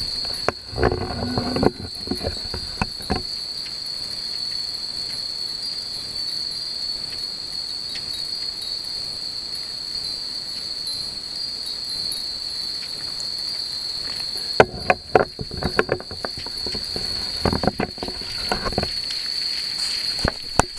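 Many Japanese furin wind chimes tinkling in two clusters, near the start and again from about two-thirds of the way through, over a steady high-pitched drone of night insects.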